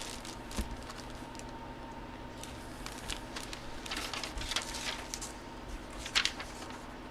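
Light handling noises: scattered clicks and rustles of items being picked up and moved, a few louder ones a few seconds in and again near the end, over a faint steady hum.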